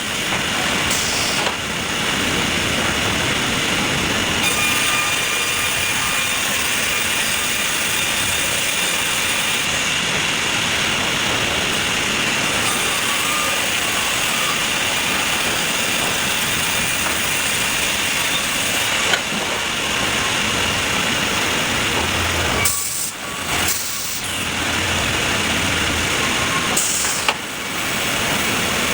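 Sawmill machinery running steadily, a dense mechanical noise with a faint high whine, shifting abruptly several times.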